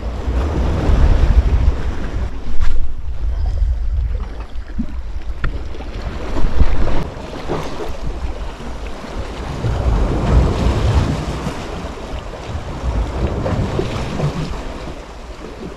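Wind gusting against the microphone over the steady wash of sea waves at the shore, with a few light knocks.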